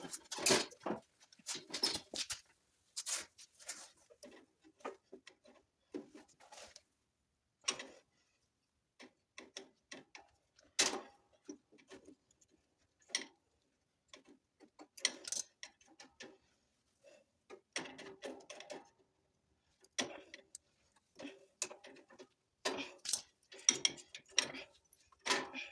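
Irregular clicks, knocks and clinks of hand tools and metal parts being handled while a riding mower is taken apart, coming in uneven clusters with short silent gaps.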